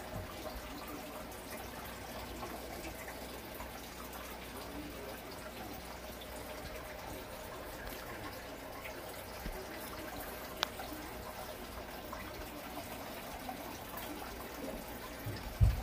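Steady trickling and splashing of a stream of water pouring into an aquarium. A sharp click comes about two-thirds of the way through, and a dull thump, the loudest sound here, comes just before the end.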